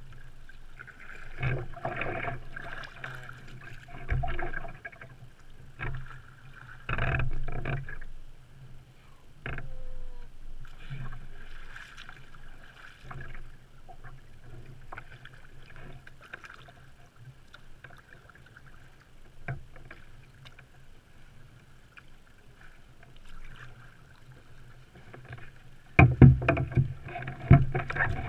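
Sea kayak paddling: irregular paddle splashes and water lapping at the hull, heard from the front deck of the kayak. Near the end, much louder knocks and splashes as the kayak comes ashore at a sandy beach.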